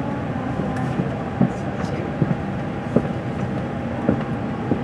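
Station platform ambience heard from inside a stationary Shinkansen car: a crowd murmuring over a steady hum, with short sharp clicks every half second or so.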